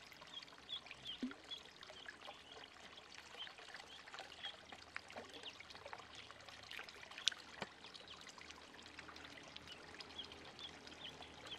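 Ducklings paddling and splashing in shallow water, with faint, short high peeps repeating throughout. A sharp click about seven seconds in stands out as the loudest sound.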